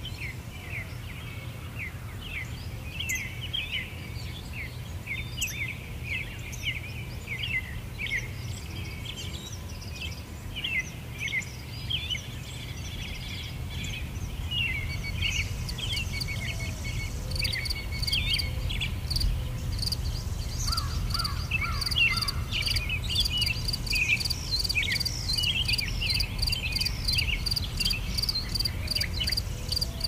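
Outdoor bird chorus: many small birds chirping in short, quick calls over a low steady rumble. From about halfway through, an insect joins with a rapid, evenly pulsing high chirp that continues to the end.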